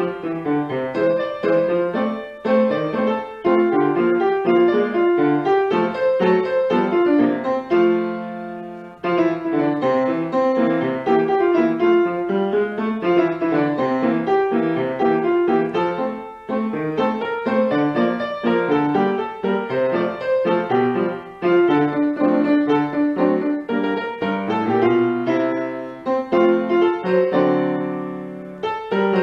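Piano music playing a flowing run of notes, with short pauses about eight and sixteen seconds in.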